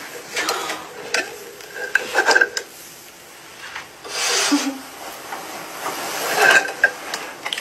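Rustling and rubbing of bedding and blankets as someone moves in bed, in uneven scraping swells.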